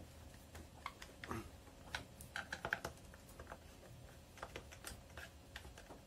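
Screwdriver tightening the screws of a Patriot chainsaw's plastic top cover: faint, irregular small clicks and ticks, with a quick run of them about halfway through.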